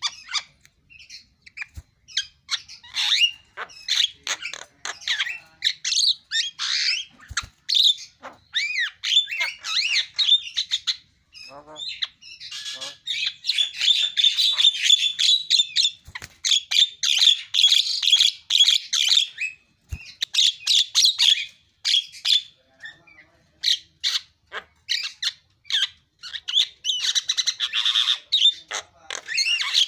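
Javan myna (jalak kebo) singing vigorously: a busy, varied run of harsh squawks, chattering notes and short whistles in bursts separated by brief pauses.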